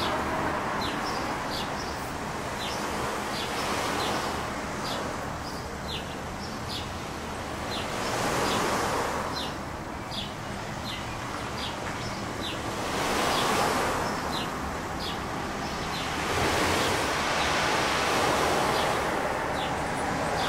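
Small waves washing onto the shore, surging every four or five seconds over a steady low rumble, with short high chirps repeating about twice a second.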